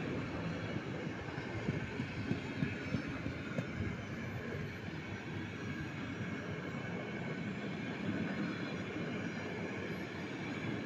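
Passenger coaches of an Intercity train rolling past: a steady rumble of wheels on rail, with a few sharper knocks about two to three seconds in.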